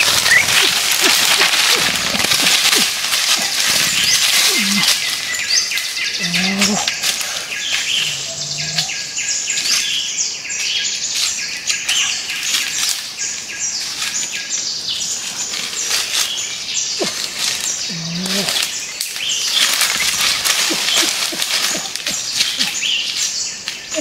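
Forest ambience of many birds chirping, with short low calls that come every few seconds.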